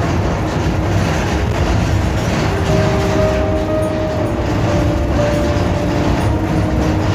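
Steady low rumble of a moving vehicle with city traffic noise, heard from aboard a sightseeing bus.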